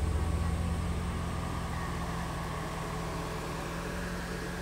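Mercedes-Benz 500SL's 5.0-litre DOHC V8 running at low speed through a one-off stainless exhaust as the car drives slowly across the lot. The engine sound fades steadily as the car moves away.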